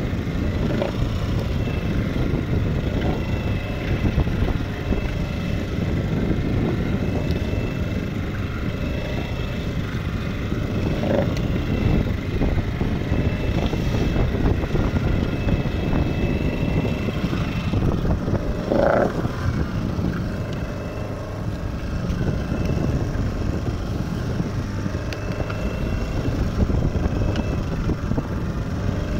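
Small fishing boat under way at sea: a steady low drone of its motor mixed with water rushing along the hull and wind on the microphone. A brief higher sound stands out about two-thirds of the way through.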